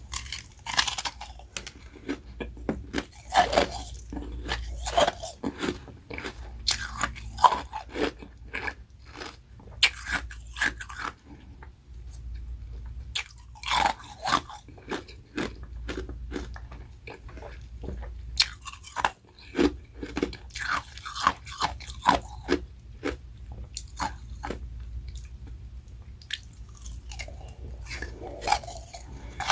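A person biting and chewing carbonated ice rounds topped with refrozen freezer-frost shaved ice, close to the microphone. Sharp crunches come in clusters, with short quieter stretches of chewing between them, over a steady low hum.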